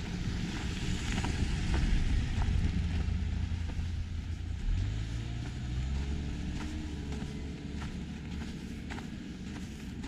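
A motor vehicle's engine running close by out of sight, its low hum stepping up in pitch about halfway through, with footsteps crunching on packed snow.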